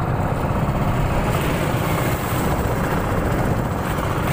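Engine of a motorized outrigger boat (bangka) running steadily while under way.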